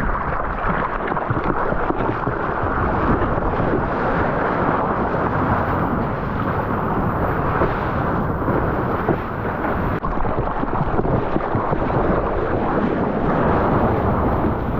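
Rushing whitewater and wind buffeting a point-of-view camera's microphone as a surfboard rides a broken wave: a loud, steady rumble.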